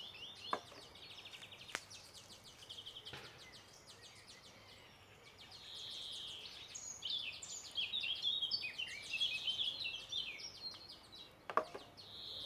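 Small birds singing outdoors, a run of quick chirps and trills that is busiest in the second half. A few short sharp clicks fall in between, one of the louder ones near the end.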